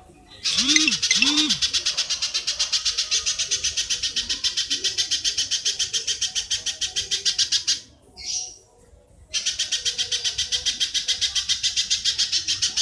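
Recorded masteran call: a rapid, even chatter of sharp high notes, about seven a second, opening with two short swooping notes. It breaks off after about seven seconds and starts again a second and a half later.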